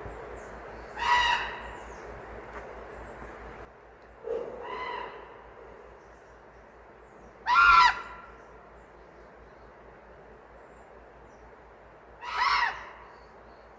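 Common raven calling four times, short arched croaking calls spaced a few seconds apart, over a steady background hiss.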